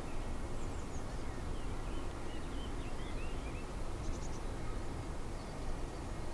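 Outdoor ambience: a steady low rumble and hiss with small birds chirping and twittering through the first few seconds, and a short high trill about four seconds in.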